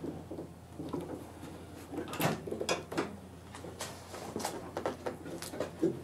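Vinyl-covered car door panel being worked up and off the door: a few irregular sharp clicks and knocks with light scraping as the panel shifts against the door frame.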